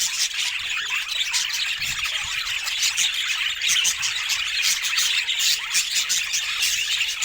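Budgerigars chattering: a dense, unbroken run of overlapping short chirps, squeaks and warbles.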